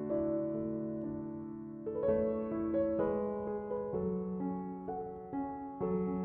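Background music: a gentle piano tune of sustained notes and chords, changing about once a second.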